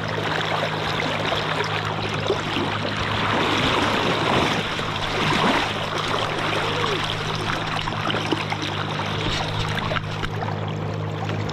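Fast river current rushing and splashing around a camera held at the water's surface, with a steady low hum underneath.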